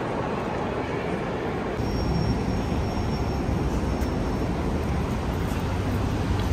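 Busy city street ambience: a steady low traffic rumble with crowd noise, following a cut about two seconds in from the quieter, echoing hum of a crowded train station concourse. A faint high whine sounds briefly just after the cut.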